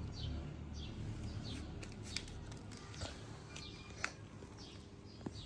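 A small bird chirps repeatedly in the background, each chirp short, high and falling in pitch. A few light clicks come in between, the sharpest about four seconds in.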